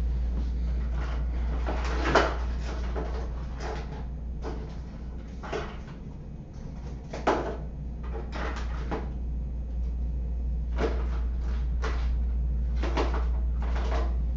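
Irregular knocks and clacks of small objects being handled and set down, about a dozen in all, loudest about two seconds and seven seconds in, over a steady low hum.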